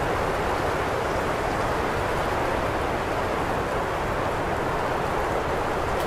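Heavy winter wind blowing in a steady, even rush, with no single gust standing out.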